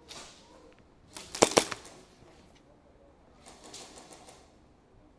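Two sharp airsoft gun shots in quick succession about a second and a half in, with softer rustling noise before and after.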